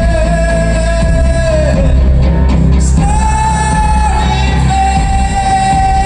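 Live music: a man singing long held notes over acoustic guitar and a steady low bass. The first held note ends a little before the two-second mark. A higher one starts about a second later and steps slightly down near the middle, then holds.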